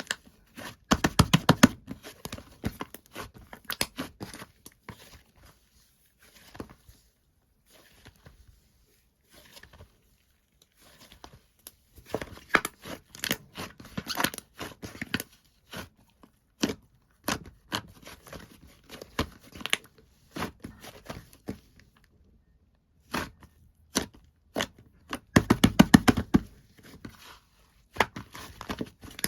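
White slime being squished, stretched and pressed by hand, giving off sticky clicking and crackling pops in bursts. The pops come thickest and loudest about a second in and again near the end, with a few quiet pauses between.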